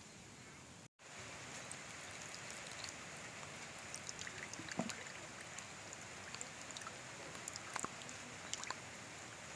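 Faint wet squishing, small clicks and trickling as crushed rose petal and beetroot pulp is pressed by hand through a steel mesh strainer and the juice drips into a clay bowl, over a steady low hiss.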